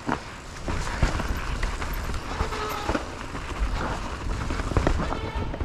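Mountain bike rolling over a rough trail: a steady low rumble broken by sharp knocks and rattles.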